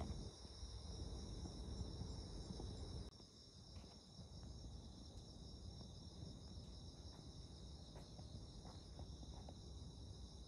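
A steady chorus of crickets, several overlapping high-pitched trills, over a low rumble of background noise that drops sharply about three seconds in.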